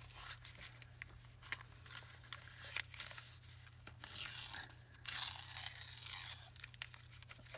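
Paper napkin and journal papers being handled: light crinkling and small taps, with two longer rasping rustles about four and five seconds in.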